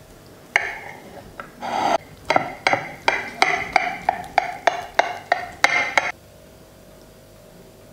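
A knife cutting a crisp fried lavash-and-egg pie on a plate, in quick sawing strokes about three a second, the blade clicking and scraping on the plate. The strokes stop about six seconds in.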